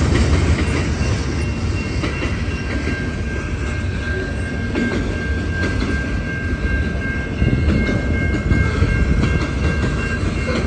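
Freight cars rolling past at close range: a steady rumble of steel wheels on rail, with a thin high squeal running through most of it.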